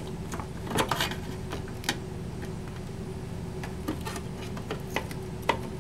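Scattered small metal clicks and taps of needle-nose pliers and a hand tool against a metal radio chassis as a heavily soldered lead is worked loose from its terminal, over a steady low hum.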